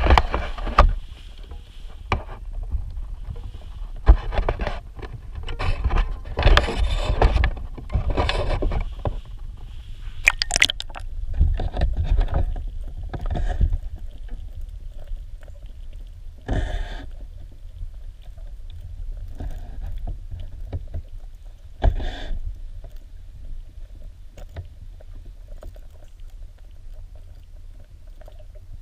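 Knocking and rubbing on a waterproof action camera's housing as it is lowered into a river, then a muffled low underwater rumble broken by two sharp knocks.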